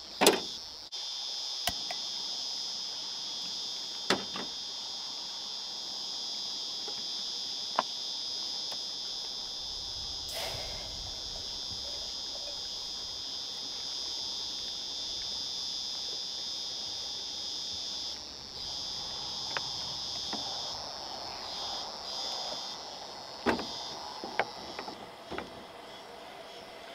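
Chorus of cicadas droning steadily in a high pitch, briefly dropping out a few times, with scattered clicks and knocks of camping stove gear and a plastic bottle being handled.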